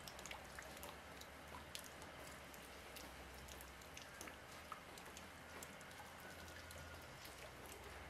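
Faint, irregular ticks of falling water drops scattered over a soft hiss, with a low steady hum underneath.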